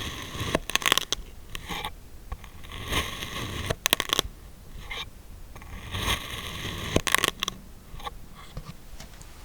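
Kinetic sand being cut and crunched: three bursts of gritty scraping, each ending in sharp crackles, about three seconds apart.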